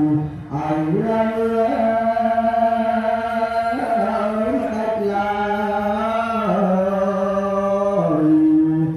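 A single voice chanting a slow Khmer Buddhist funeral chant in long, drawn-out melodic phrases, its held notes stepping up and down in pitch, with a brief break about half a second in.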